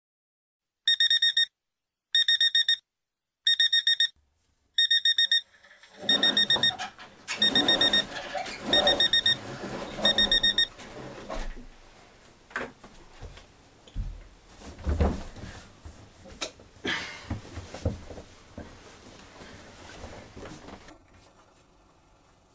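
Electronic alarm clock beeping in short bursts of rapid high beeps, eight bursts about a second and a bit apart, stopping about ten seconds in. From about six seconds in there is rustling, with a few knocks and soft thumps of someone moving about.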